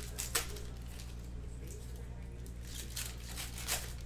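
Foil trading-card pack wrapper torn open and crinkled by hand: a quick crinkle about a third of a second in, then a run of crinkles toward the end, over a steady low hum.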